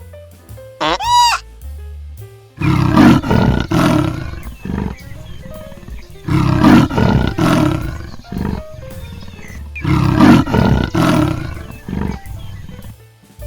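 Big cat roaring in three bouts of about three seconds each, every bout a run of loud, deep, pulsing calls, over background music. A short bleat-like call comes about a second in, before the first roar.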